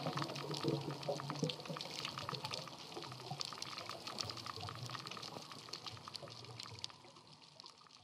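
Underwater reef sound: a dense crackle of small clicks over bubbling, gurgling water, fading near the end.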